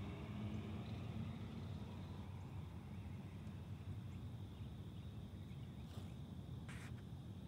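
Quiet outdoor background: a steady low rumble with a faint thin high tone, and two short hissing sounds near the end. The snail itself makes no sound.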